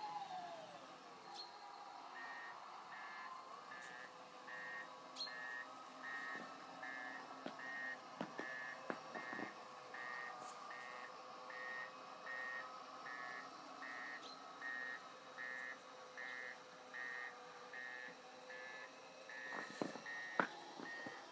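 Reversing warning beeper of a 1:8 radio-controlled PistenBully 300 Polar snow-groomer model, beeping about one and a half times a second from about two seconds in, over the steady hum of the model's drive. A falling whine at the start as the drive slows, and a few sharp clicks near the end.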